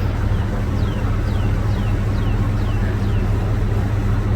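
Steady low hum of an idling vehicle engine. Over it, a run of about six short, high chirps, each falling in pitch, come about two a second for a few seconds.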